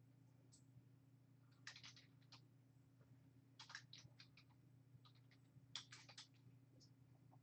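Faint computer keyboard typing in short bursts of a few keystrokes each, over a steady low hum.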